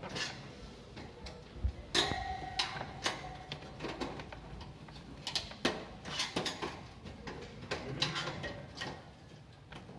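Irregular clicks, ticks and small rattles of metal and plastic parts as a heat-stuck heating-element terminal is worked loose by hand inside an electric heater's housing.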